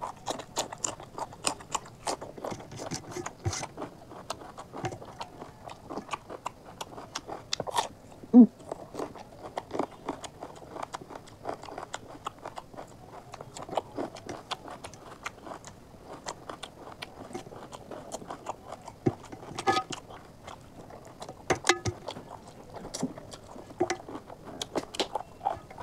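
Close-up chewing and biting as a person eats chicken curry and rice by hand: a dense, irregular run of wet mouth clicks and smacks.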